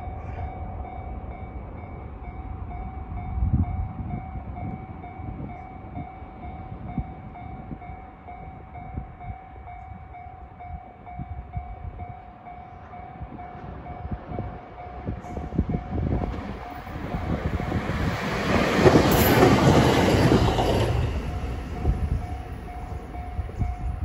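Japanese level-crossing warning bell ringing in a steady repeating ding, while a train passes: a rushing rumble that builds about two-thirds of the way in, is loudest a few seconds later and then fades.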